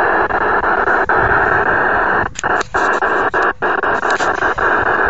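Cobra CB radio's speaker giving out loud, steady static hiss on an open channel. From about halfway through, the hiss is cut by several brief dropouts.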